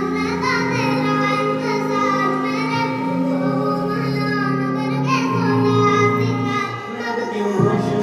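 Music with high-pitched singing, a childlike or synthetic-sounding voice over sustained instrumental backing.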